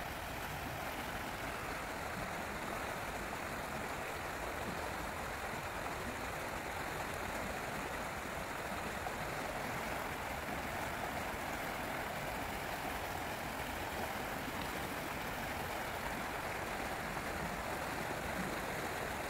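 Shallow stream at its normal low flow, running over a gravel bed and small riffles: a steady rush of water with no change in level.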